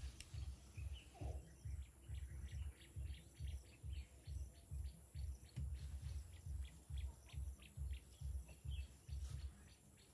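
A sheet of paper or card fanned quickly over charcoal that will not catch, each stroke pushing a soft whump of air, about two or three a second, stopping near the end. Birds chirp in the background.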